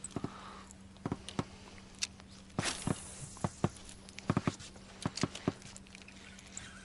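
Irregular sharp clicks and knocks of fishing tackle being handled in an inflatable boat, near an open plastic lure box, with a brief scraping rustle about two and a half seconds in. A faint steady low hum runs underneath.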